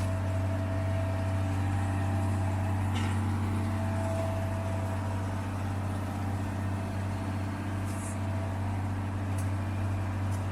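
Engine of heavy road-construction machinery running steadily with a deep, even hum, a few faint clicks and knocks over it.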